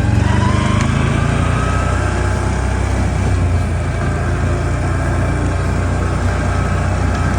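ATV engine running steadily while under way, its pitch wavering slightly with the throttle.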